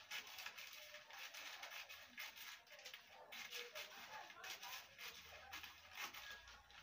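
Scissors snipping through a paper dress pattern: a faint, steady run of crisp cuts, about three a second, with paper rustling.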